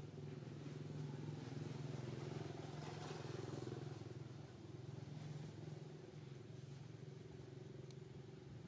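Faint, steady low hum of a motor engine running, swelling a little about a second in and easing off again after a few seconds.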